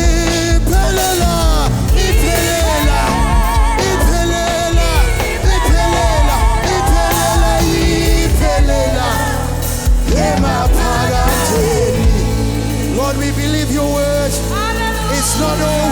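Live gospel worship music: a band with bass and drums plays under singing voices with vibrato. About twelve seconds in, the drums drop out and sustained chords and voices carry on.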